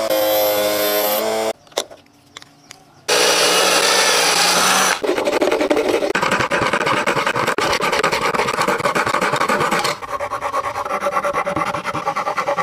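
A thin saw blade cutting a PVC plastic sheet in quick rasping strokes, then from about ten seconds in a hand file rasping back and forth to square out the cut hole. In the first few seconds there are short stretches of a steady machine whine.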